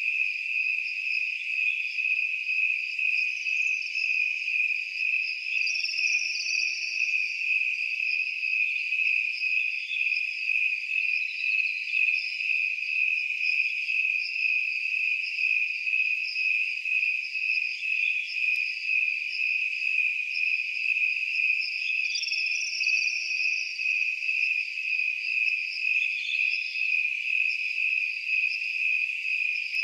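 Crickets chirping in a continuous, steady chorus, high-pitched and evenly pulsing, swelling about one and a half times a second.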